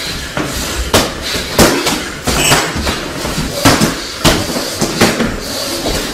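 Boxing gloves landing during a sparring round: several sharp, irregular punches thudding on gloves and headgear, over a steady noisy background.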